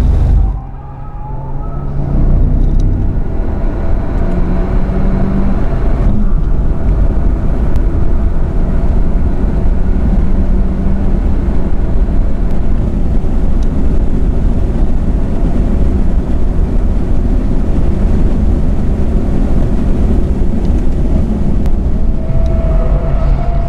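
Hyundai Avante Cup race car heard from inside its cabin, accelerating hard: the engine, wind and tyre noise dip sharply about a second in, then build back and hold loud and steady as the car pulls through fourth gear at high revs. Near the end the driver is braking from high speed.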